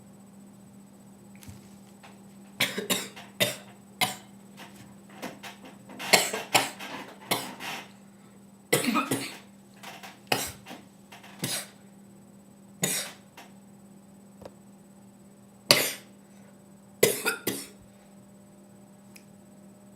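A person coughing in repeated fits: short coughs, often several in quick succession, separated by pauses of a second or more. They stop a couple of seconds before the end.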